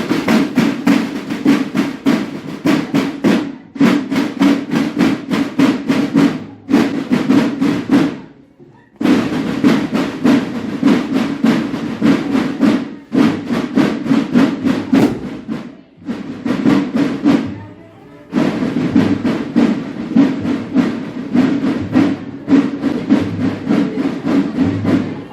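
Street procession marching band drumming: rapid, even drum strokes in phrases of a few seconds, each broken off by a short pause before the next phrase starts.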